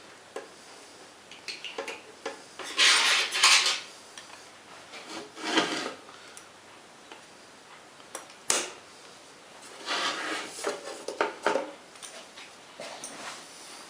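Metal tools and parts clinking and scraping as they are handled in a workshop, in irregular bursts with a sharp click about halfway through; no motor running.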